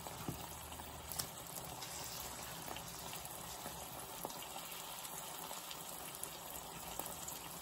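Ham and egg sizzling in oil in a frying pan: a steady hiss, with a few faint ticks of a metal spatula in the pan.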